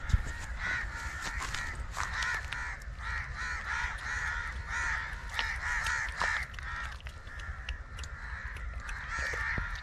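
A flock of birds giving harsh, repeated calls almost without pause, many of them overlapping.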